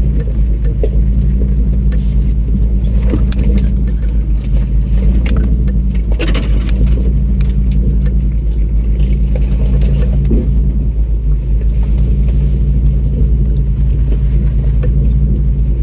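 Off-road 4x4 crawling slowly over a rough trail: a steady low engine drone, with scattered clicks and knocks from the truck bouncing over the ground, one louder knock about six seconds in.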